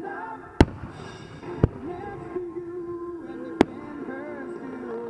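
Aerial firework shells bursting: three sharp bangs, about half a second, a second and a half, and three and a half seconds in, over music with sustained notes.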